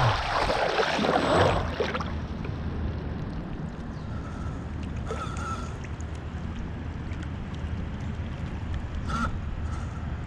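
Water rushing and splashing around an RC model boat's hull as it coasts off the throttle, dying away over about two seconds into gentle lapping and a steady low hum. A few short high-pitched calls sound a little later.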